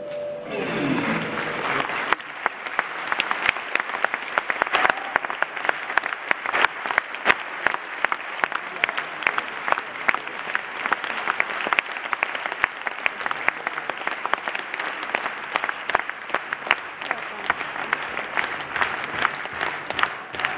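Concert audience applauding at the end of a live song, with sharp individual claps close by standing out over the dense clapping. The song's last note dies away in the first second.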